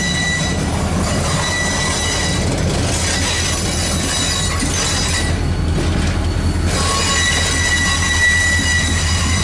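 Fluted stainless-steel passenger cars rolling past, a steady low rumble of wheels on the rails with a high, steady wheel squeal over it. The squeal drops out briefly a little past the middle and is loudest near the end.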